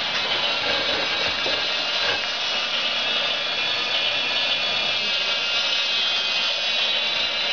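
Battery-powered toy steam locomotive running around a plastic track, its small electric motor and gears whirring steadily.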